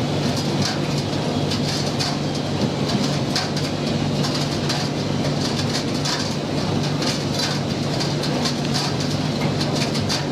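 Gas-fired commercial tumble dryer running with its burner lit: a steady hum from the drum and blower motor, with irregular light clicks throughout.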